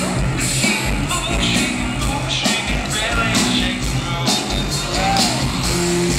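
Live band playing loud amplified music, with a steady drum beat, bass guitar and singing.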